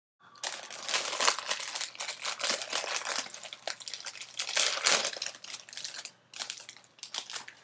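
Foil Pop-Tarts wrapper crinkling and tearing as it is pulled open, a dense crackle that thins out about six seconds in.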